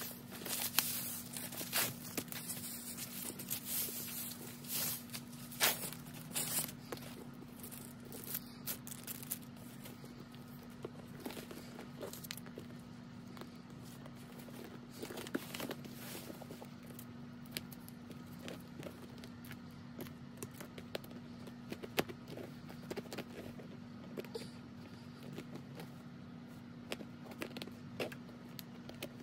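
Plastic and tissue packing wrap crinkling and tearing as it is pulled off a handbag, densest over the first several seconds, then scattered light rustles and clicks as the bag and its metal hardware are handled. A steady low hum sits underneath.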